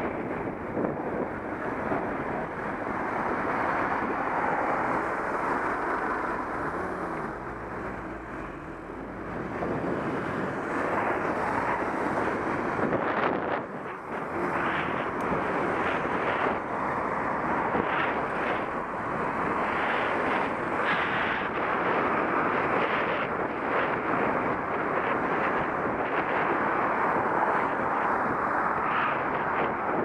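Wind buffeting the microphone of a camera on a moving bicycle, a steady rushing noise with road rumble underneath and a few short knocks from bumps in the road surface.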